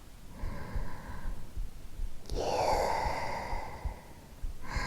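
A woman's soft sigh close to the microphone about half a second in, then a long whispered 'gyuu', over the low, soft thumps of her own recorded heartbeat.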